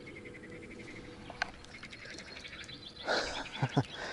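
Crickets chirring in a faint, steady pulsing trill. About three seconds in, a sudden louder burst of splashing and rustling as a fish is struck and lifted out of the reeds on a float rod.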